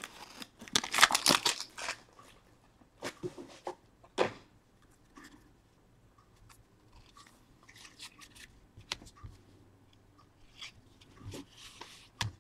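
A trading-card pack wrapper being torn open with a loud crinkling rip in the first two seconds, followed by quieter intermittent rustling and light ticks as the cards are handled.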